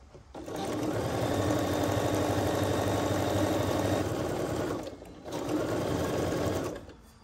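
Computerized sewing machine stitching a seam through quilt fabric at a steady speed, in two runs: one of about four seconds, a brief stop, then a shorter run of about a second and a half.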